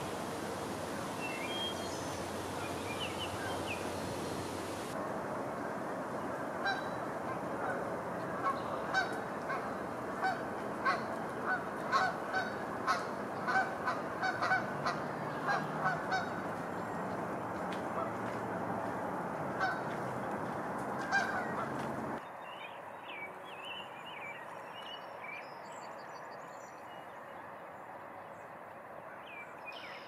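A bird's short pitched calls repeated about two times a second over a steady outdoor hiss, thinning out after the middle. Near the end, after an abrupt change, quieter high chirping of small birds.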